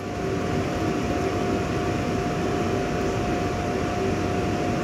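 Koleje Śląskie Elf electric multiple unit standing at the platform, its ventilation and onboard equipment giving a steady hum with a faint constant whine.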